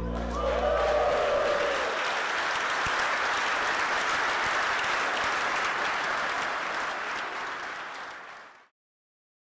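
An audience applauding, with a short cheer rising and falling in the first couple of seconds. The applause fades slowly and cuts to silence near the end.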